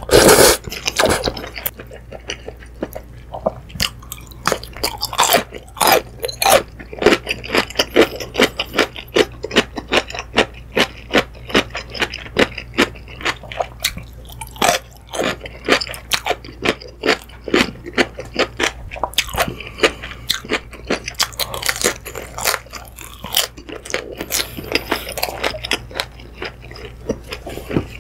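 Close-miked eating: a loud slurp of ramyun noodles in the first second, then steady wet chewing with many crunchy bites and mouth clicks.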